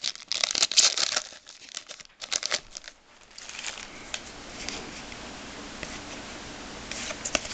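A foil trading-card pack wrapper crinkling and tearing in quick, crackly bursts for about three seconds, then only faint handling ticks over a steady hiss.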